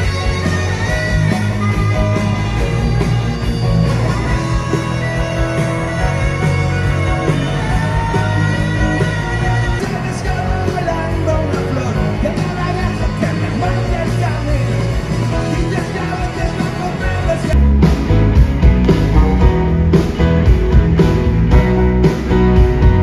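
Live rock band playing, with sustained melodic lines over bass and drums. Near the end the band comes in harder with a strong, steady drum beat.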